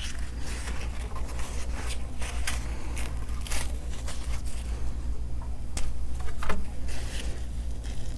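Thin rumali roti flatbreads being lifted, folded and torn by hand: soft rustling with many scattered sharp crinkles, over a steady low hum.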